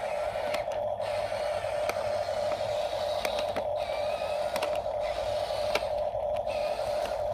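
Small electric gear motor of a remote-control construction toy whirring steadily, with a few sharp clicks.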